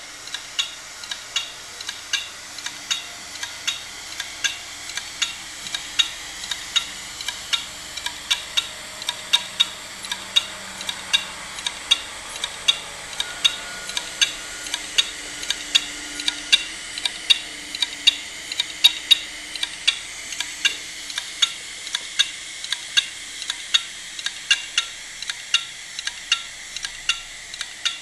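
An opened hard disk drive running with its cover off: the platter spins with a steady high hiss and faint whine, while the read/write head arm ticks sharply and regularly, about twice a second.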